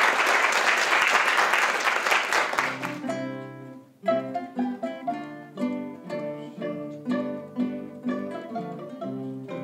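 Audience applause that breaks off abruptly about three seconds in. A classical guitar ensemble then starts playing, with plucked notes and chords in a steady rhythm.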